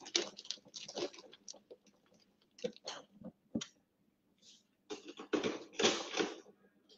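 Folded paper coupons rustling in a clear plastic draw box as a hand stirs and picks through them: scattered short crinkles and clicks, busiest near the end.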